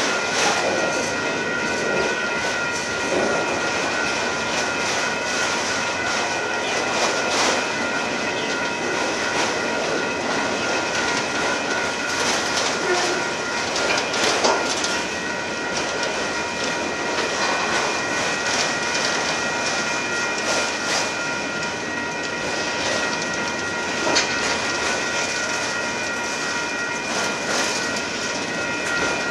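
Autorack freight cars of a manifest train rolling past on the rails: a continuous rumble and rattle with scattered wheel clicks. A steady high-pitched whine runs throughout.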